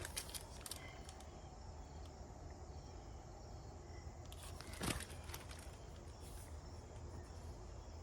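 Quiet outdoor background with a steady low hum, and one short rustle or click about five seconds in.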